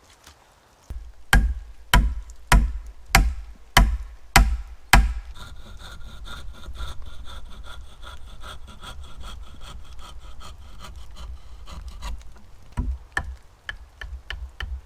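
A hazel peg being driven into an augered hole with seven hard wooden knocks about half a second apart, then a hand saw cutting off the protruding peg end in quick, steady strokes for several seconds, ending in a few lighter knocks.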